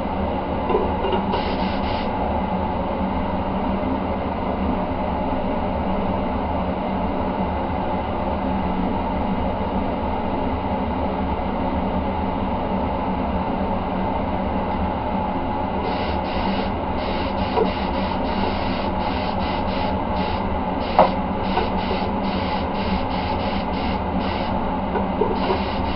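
Air compressor running steadily while a mini spray gun sprays paint, its air hiss switching on and off in short spurts during the second half as the trigger is pulled and released.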